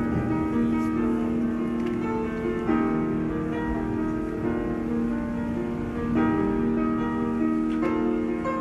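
Slow piano music with held chords that change every second or two, playing as the introduction to a song.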